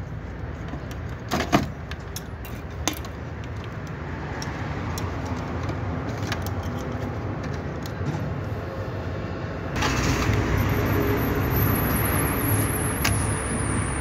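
Small metallic clicks and rattles as wire terminals are pushed onto a window AC thermostat and the part is handled, over a steady low traffic rumble. From about ten seconds in, a louder passing vehicle takes over, with a high whine that slowly falls in pitch.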